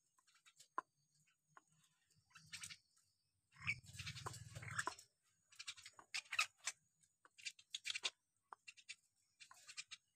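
Hill myna (beo) calling: a string of short, sharp squawks and clicks, with one longer, lower call about four seconds in.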